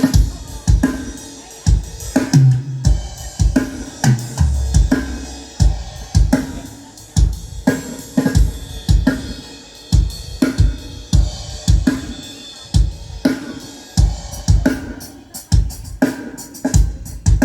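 Drum kit played in a steady groove for a sound check through a Midas M32 digital mixer: kick and snare hits with hi-hat and cymbals. About two to five seconds in comes a fill of low pitched hits stepping down in pitch, like a run down the toms.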